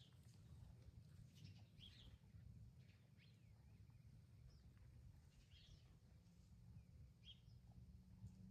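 Faint birdsong: short chirps and calls scattered through, over a low steady rumble.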